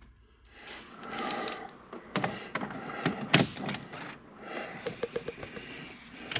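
Clicks and knocks as the ignition key of a Porsche 991 GT3 is handled and turned in its lock. The loudest click comes about three and a half seconds in, followed about five seconds in by a short run of four quick ticks.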